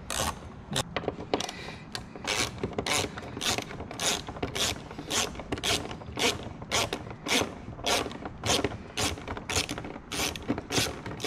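Hand ratchet clicking steadily, about three clicks a second, as it backs out a small 7mm screw from the Corvette's fuel-door surround.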